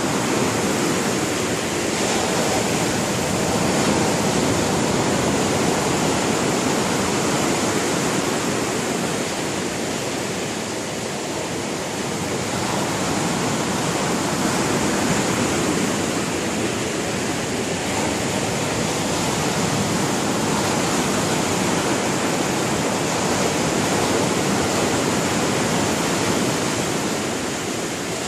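Rough sea surf, force-5 waves breaking on the shore: a loud, continuous rush of water that slowly swells and eases.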